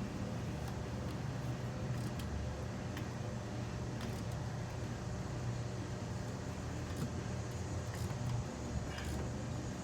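Steady low mechanical hum, like a vehicle engine running, with a few faint clicks and taps over it.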